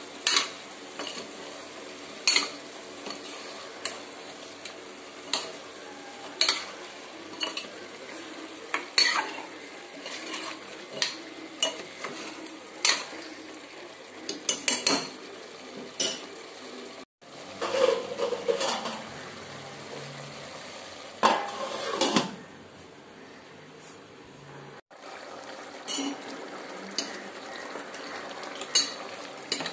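A metal spoon knocking and scraping against a metal cooking pot while chicken gravy is stirred, with sharp clinks every second or two. A steady frying sizzle runs underneath.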